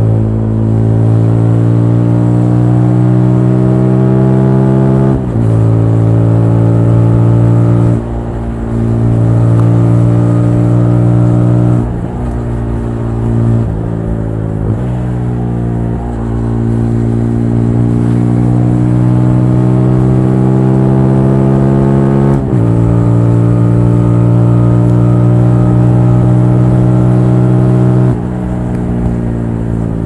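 TVS Apache RTR 200 4V's single-cylinder engine running under acceleration. Its pitch climbs steadily and falls back sharply at each gear change, about six times.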